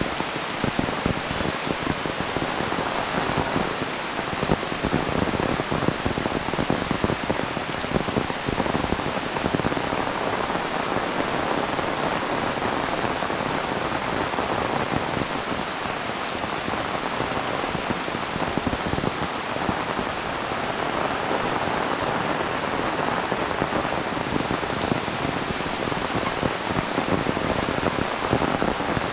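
Heavy rain falling steadily, a dense patter of drops hitting the surfaces close by.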